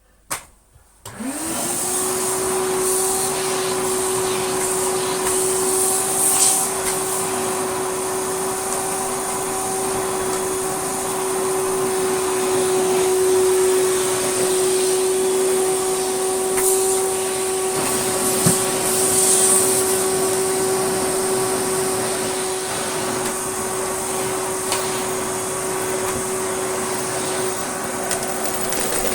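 Hoover Celebrity floating cylinder vacuum cleaner switched on: a click, then the motor spins up about a second in and runs steadily with a hum and a rushing hiss.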